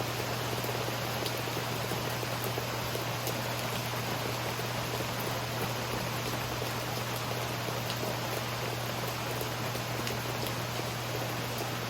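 Steady rainfall: an even hiss with scattered individual drop ticks, over a constant low hum.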